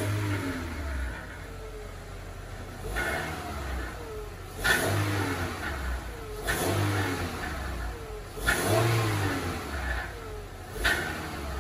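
Volkswagen Beetle engine revved in about six short blips, roughly every two seconds, with a strange rattling from inside the catalytic converter on each rev, which the mechanic says means the catalytic converter must be replaced.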